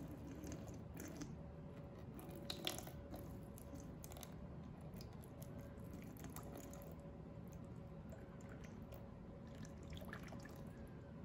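Water poured slowly from a plastic cup, splashing faintly onto a maple cutting board, with small scattered drips and patters.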